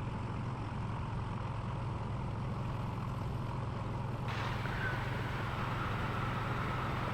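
Steady cockpit noise inside a Dassault Falcon 7X business jet on the ground: a low hum under an even hiss, the hiss turning brighter and sharper about four seconds in.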